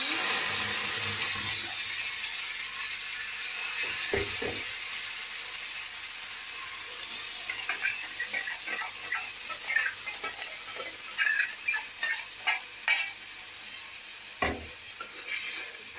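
Tomato chutney paste sizzling as it hits hot oil and cumin in a small steel pan, loudest at first and easing over the following seconds. From about halfway there are metal clicks and scrapes as the rest of the paste is emptied from the steel grinder jar into the pan, with a couple of dull knocks.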